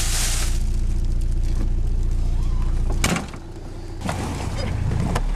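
Car engine running steadily at idle. About three seconds in, a door thuds shut and the engine hum drops away, then builds back as it is heard through the closed cabin.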